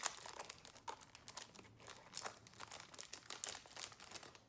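Snack wrapper crinkling and rustling as it is unwrapped by hand: many small irregular crackles.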